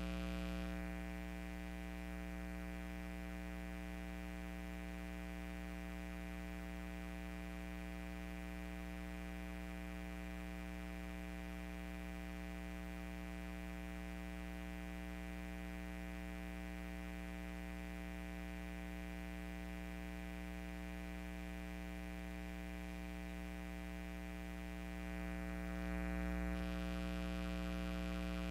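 Steady electrical buzz with many even overtones, unchanging in pitch, growing a little louder near the end.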